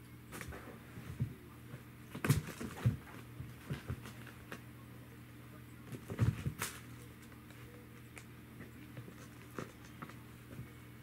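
A Norwegian Forest Cat kitten scrambling inside and pouncing on a felt play tunnel: soft thumps, scuffs and rustling of the felt, loudest in two bursts about two seconds and six seconds in. A faint steady hum runs underneath.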